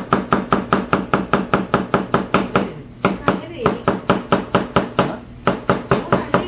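Steel cleaver chopping squash on a plastic cutting board, in quick, even strokes about four a second, with two short breaks partway through.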